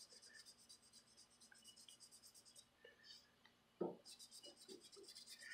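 Faint scratching strokes of dry P320 sandpaper on a small plastic body-filler spreader, rubbed by hand across a run in cured automotive clearcoat to cut it down. The strokes are sparse at first and come about four a second in the second half, with one brief knock just before.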